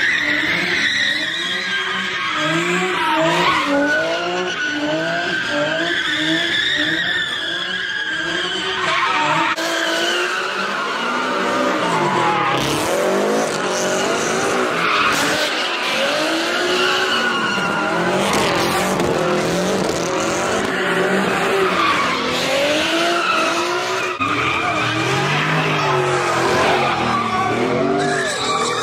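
Cars doing donuts and drifts: engines revving up and down over and over, with tyres squealing and skidding on the asphalt.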